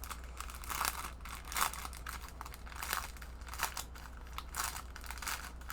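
Plastic packaging crinkling in irregular bursts as it is handled and opened: the bags of diamond-painting drills being unpacked.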